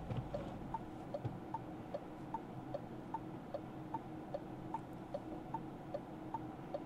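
Renault Megane E-Tech's turn-signal indicator ticking inside the cabin: an even tick and a lower tock, the pair repeating a little faster than once a second. The car's automatic parking assistant switched the signal on itself for the parking manoeuvre.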